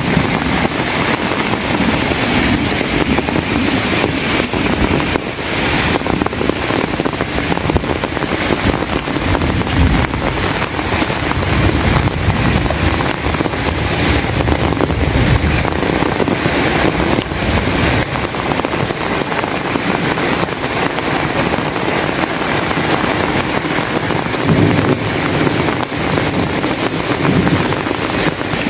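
Heavy rain pouring steadily, with wind buffeting the microphone in irregular low gusts.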